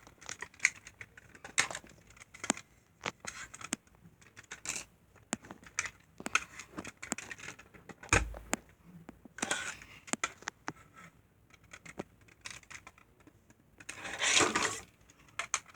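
Irregular plastic clicks and knocks from a large Bakugan Deka toy being handled and rolled on a smooth floor, with one sharper knock about halfway through and two short scraping sounds later on.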